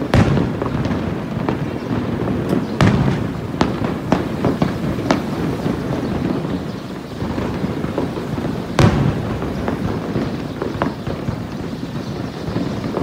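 Aerial firework shells bursting in a dense display: irregular sharp bangs over a continuous rumble and crackle, the loudest bangs at the start and about nine seconds in.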